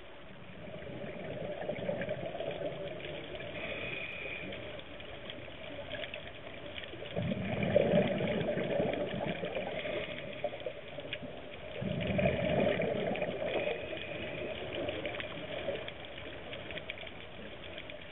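Underwater sound of a diver breathing through a scuba regulator: two longer bubbling exhalations, about seven seconds in and again about five seconds later, with fainter hissing breaths between them.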